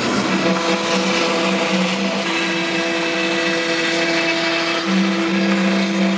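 CNC router spindle running steadily as its bit mills a curved groove in pine, a steady rushing noise with a humming whine underneath.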